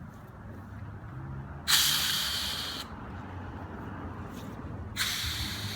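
Air hissing out of an inflatable pontoon's valve as it is pushed open, in two bursts of about a second each that start sharply and fade: the pontoon is being partly deflated.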